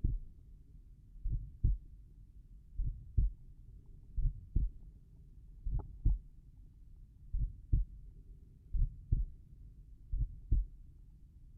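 Slow human heartbeat at rest, the uploader's 'tricuspid valve heart sounds': about seven low lub-dub double thumps, one roughly every one and a half seconds, around 40 beats a minute.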